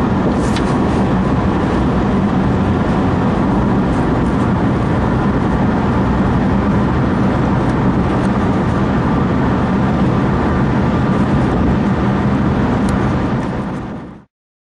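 Steady road and engine noise heard from inside a moving vehicle's cabin, fading out near the end.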